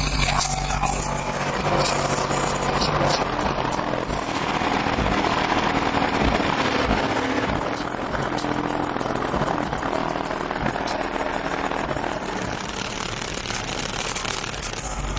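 Very loud subwoofer bass from an 18-inch JL Audio W3 in a sealed enclosure, heard inside the car cabin as a dense, distorted rumble and noise rather than clear music.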